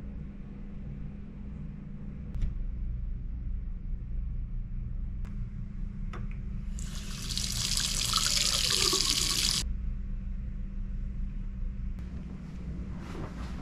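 Gooseneck faucet running into a small bar sink for about three seconds, then shut off sharply, over a steady low hum.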